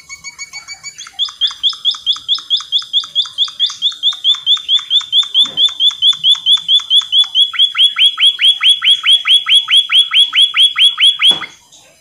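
White-headed munia (emprit kaji) singing: a thin high whistle, then a long fast run of short repeated high notes, about four or five a second, growing louder and cutting off abruptly near the end.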